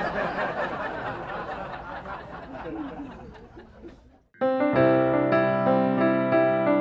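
Several people laughing together, dying away over the first four seconds; after a brief silence, keyboard music with sustained electric-piano chords starts up loudly about four and a half seconds in.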